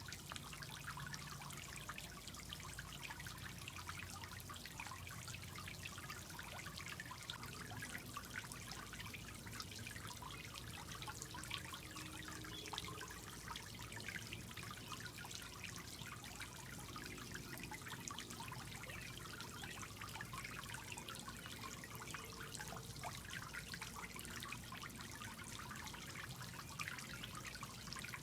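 Tetra Pond filter fountain trickling steadily into the pool, a constant patter of small splashes and drips.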